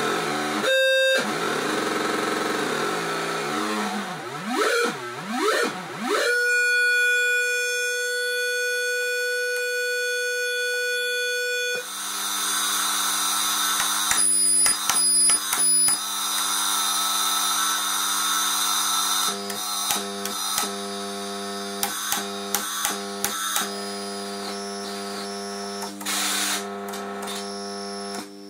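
FusoElektronique NDR-113 noise machine, built on the SN76477 sound-generator chip, being played by hand. It starts with wavering tones that glide up and down, settles into one steady electronic tone, and from about twelve seconds in gives a hiss of white noise over a steady low drone. The sound changes abruptly as the knobs and switches are worked.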